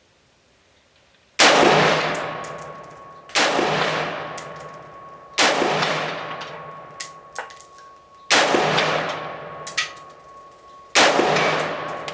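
Five single rifle shots from a Radical Firearms RF-15 AR-15-style rifle firing 55-grain .223/5.56 ammunition, spaced about two to three seconds apart, each with a long echoing decay. Light metallic clinks of ejected brass casings landing follow the shots.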